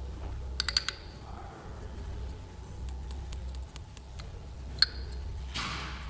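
Light clicks from a ringed piston and parts being handled on the workbench: a quick run of four clicks about half a second in, a single sharper click near the end, then a brief rustle.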